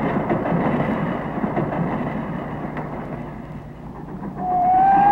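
Railroad freight cars rolling with a steady rumble and faint clatter. Near the end a high whistle-like tone starts, rising a little in pitch and then holding, louder than the rumble.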